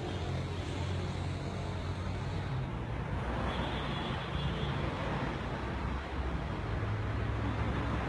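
Steady low rumble of an engine running, with a hiss of background noise over it.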